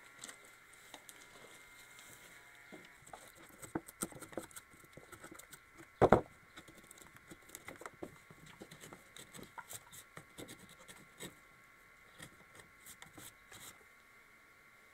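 Light, scattered taps and clicks of pine timber blocks being handled and worked, with one sharp knock of wood just after six seconds in.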